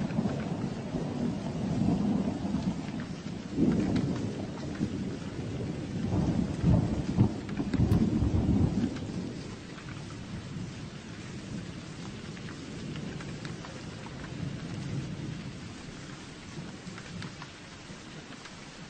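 Steady rain with rolling thunder: a low rumble swells twice in the first half, loudest at about four and seven seconds in, then fades, leaving steady rain.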